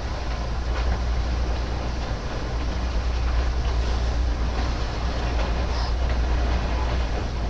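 Heavy machinery running steadily: a constant low hum under a rattling, noisy clatter.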